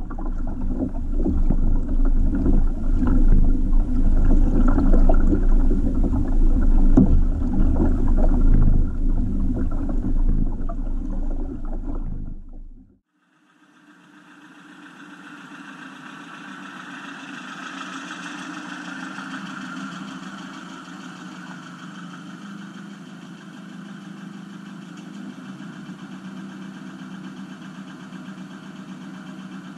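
Loud wind buffeting and water noise on a moving kayak-mounted camera, which cuts off sharply about thirteen seconds in. It gives way to a quieter, steady hum.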